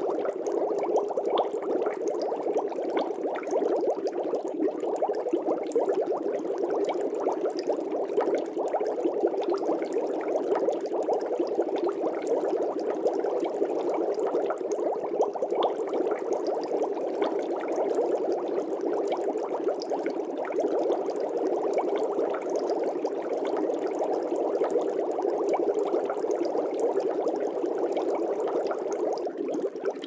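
Aquarium water bubbling steadily, a dense, even crackle of small bubbles.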